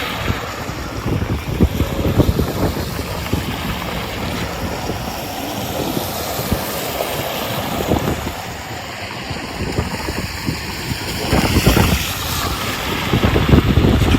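Strong wind in a snowstorm, buffeting the microphone in uneven gusts with a low rumble, loudest near the end.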